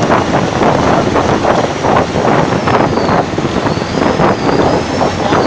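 Old Tata turbo-diesel bus engine running under way, its turbocharger giving a high, thin whistle that dips in pitch around the middle and then climbs again. Heavy wind noise lies over it.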